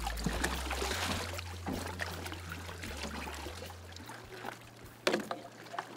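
Seawater splashing and streaming off a diver's wetsuit as he climbs out of the water over the stern of a small boat, louder at first and dying away, with two sharp knocks near the end.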